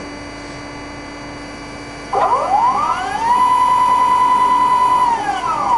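Automatic bandsaw's shuttle-vice drive motor: a steady low machine hum, then, about two seconds in, a whine that rises in pitch, holds steady, and falls again near the end as the shuttle vice travels back to its next cut length.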